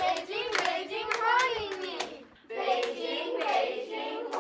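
Children's voices in a sing-song chant, with sharp hand claps falling irregularly among the words. The voices break off briefly a little past halfway.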